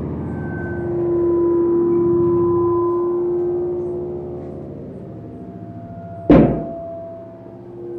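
Sound-design music of long, slowly fading ringing tones, with one sharp struck hit about six seconds in that rings on.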